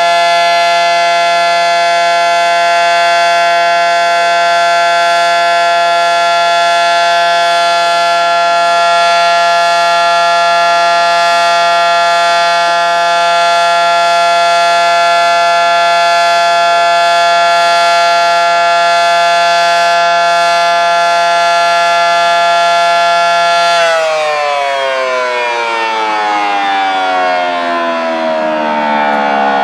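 Federal Signal SD-10 dual-tone electromechanical warning siren sounding a loud, steady chord of several tones, then winding down about 24 seconds in, its pitch falling steadily as it slows.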